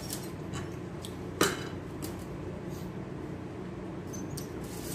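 Light clinks and clicks of a stainless steel plate and utensil being handled, with one sharp clink about a second and a half in, over a steady low hum.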